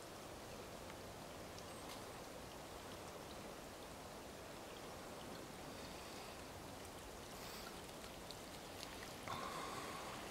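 Faint, steady rush of a creek flowing over rocks, with scattered small clicks and a short louder sound near the end.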